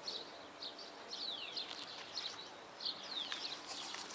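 Small birds chirping: many short, high notes with a few quick downward-sliding calls, over faint background noise.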